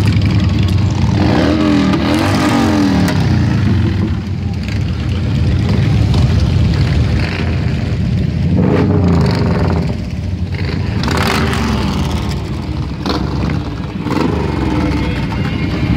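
A procession of cruiser and touring motorcycles riding past close by at low speed, one after another. Their engines run steadily, and the pitch rises and then falls as bikes go by, most plainly a second or two in, about halfway through and near the end.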